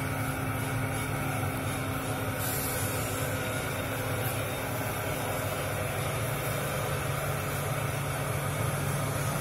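Paper plate making machines' motors running with a steady low hum, with no separate pressing strokes.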